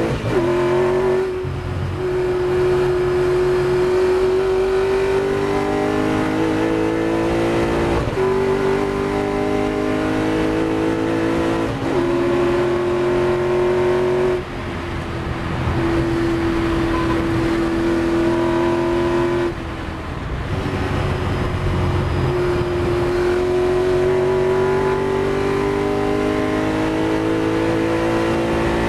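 Ford GT40's V8 racing engine at full throttle, heard from the cockpit. Its note rises steadily in pitch and breaks several times as the car shifts up. There are two short drops in level where the throttle is eased.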